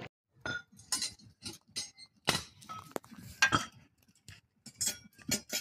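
Fired bricks knocked against each other, giving about a dozen sharp clinks, each with a short ring, spaced irregularly with brief silences between: the strike test of how well the bricks are burnt.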